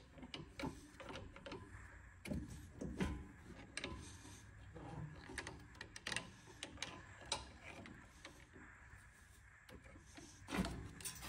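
Faint, scattered metal clicks, taps and scrapes as a pry bar levers the top of a front strut out of its upper mount on a Ford F-150, with a louder knock near the end.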